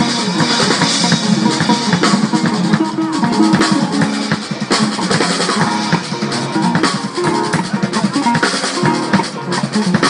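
A ngoni (West African plucked harp-lute) and a drum kit playing an instrumental groove together, with plucked ngoni notes under busy, quick drum hits.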